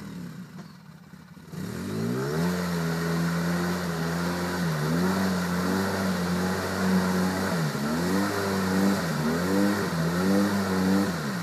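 ATV engine working under load through deep mud and water: the revs climb about a second and a half in, then hold high, dipping and picking up again several times before easing off near the end.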